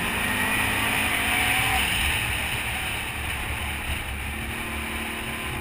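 ATV engine running steadily as the quad rides along a dirt trail, heard close up from on board, easing off a little after the middle.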